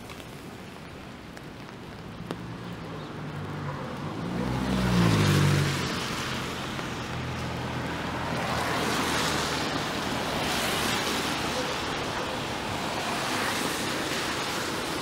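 Traffic on a rain-wet street: a vehicle drives past about five seconds in, its engine note falling as it goes by, followed by the hiss of tyres on wet pavement that swells and fades as more cars pass.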